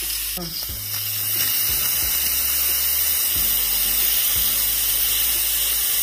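Instant Pot pressure cooker venting steam through its partly opened steam release valve: a steady hiss that grows louder about a second and a half in. It is a slow manual pressure release at the end of the pressure-cooking cycle.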